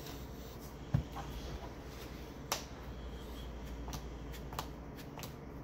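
Sleeved trading cards being moved and set down on playmats: a few scattered light clicks and taps, with a soft thump about a second in. A steady low hum runs underneath.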